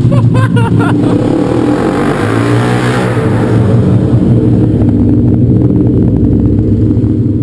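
Motorcycle engine running loud in a tunnel, its pitch dipping and then rising again about two to three seconds in.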